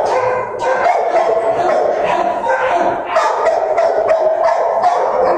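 Dogs barking, yipping and whining in a near-continuous loud din with hardly a break.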